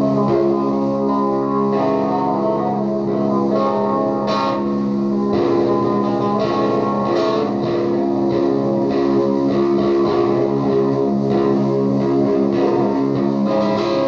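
Electric guitar played through an Orange amplifier in a looped psychedelic noise drone: many held notes ring on steadily while new notes are picked over them.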